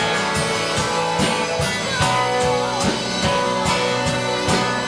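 Live worship band playing an instrumental passage: guitar over a drum kit keeping a steady beat.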